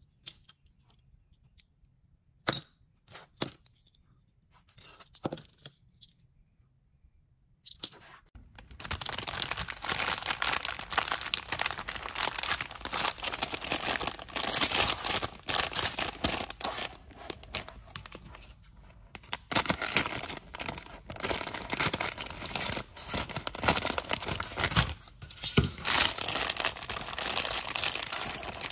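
A few separate sharp clicks, then from about eight seconds in a sealed clear plastic bag of squishy keychains crinkling continuously as it is turned over and squeezed in the hands.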